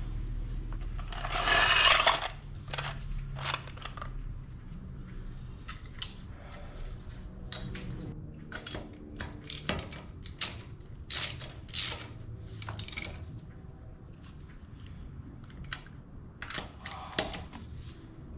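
Scattered light metallic clinks and clicks of lug nuts and hand tools as a wheel is refitted to the truck, with one louder scraping rush about two seconds in.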